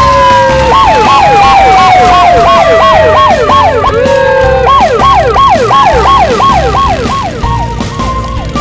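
Cartoon yelp siren sound effect, wailing up and down rapidly about three times a second and fading near the end. Under it, a long tone slides down in pitch over the first half, with a low pulsing underneath.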